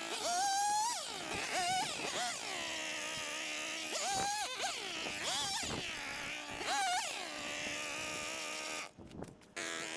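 Handheld two-stroke gas cutting tool revving up and falling back over and over as it cuts through branches. The sound cuts out briefly about nine seconds in, then picks up again.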